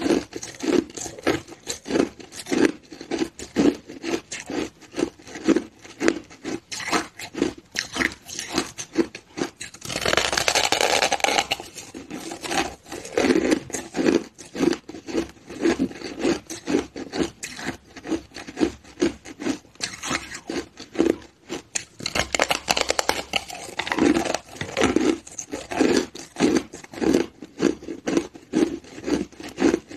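Close-up crunching of frozen craggy ice being bitten and chewed: a run of sharp crunches, about two to three a second, with a denser grinding stretch about ten seconds in and again a little past twenty seconds.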